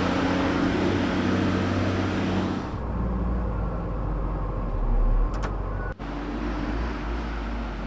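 Vehicle engines running steady. The sound changes abruptly to a lower rumble about three seconds in, and again near the end, as if cut between different shots.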